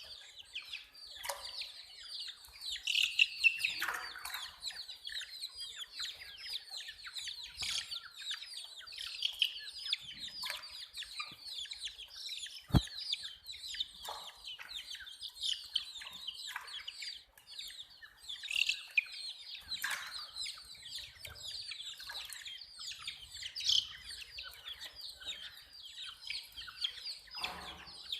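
A group of baby chicks peeping continuously, a dense stream of rapid high-pitched chirps, some sliding down in pitch. A single sharp click sounds a little before halfway through.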